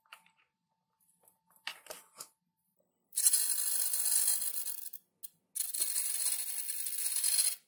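A few faint clicks of small plastic hinge parts being handled. Then an RC servo buzzes in two stretches of about two seconds each, with a short break between them, as it drives the model's slotted flap on its nylon hinges.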